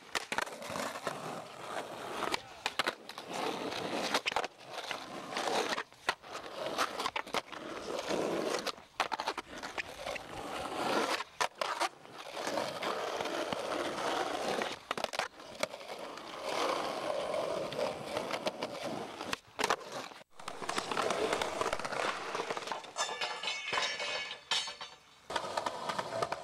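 Skateboard wheels rolling over asphalt and concrete, in several separate runs that cut off abruptly.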